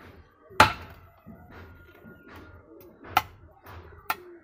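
A knife chopping through dragon fruit cactus stems onto a wooden block, cutting them into planting cuttings. There are three sharp chops; the first, about half a second in, is the loudest.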